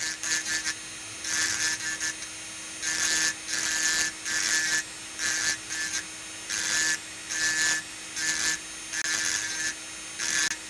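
Rotary engraving drill's burr grinding into an optical crystal block in short repeated strokes, about one or two a second, each a high scratchy whine, over the steady hum of the drill's motor.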